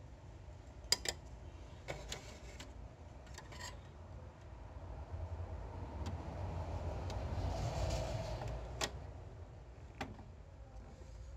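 Small plastic clicks and scraping as a thin metal pick works at the pickup roller inside an HP LaserJet P1102 laser printer. The sharpest click comes about a second in, with a few more soon after and again near the end. A longer rubbing, scraping noise swells in the middle and fades.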